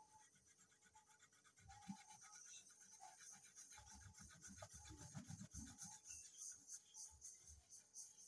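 Faint colouring on paper: rapid back-and-forth scratchy strokes of a colouring tool rubbing across the page, over a steady low hum.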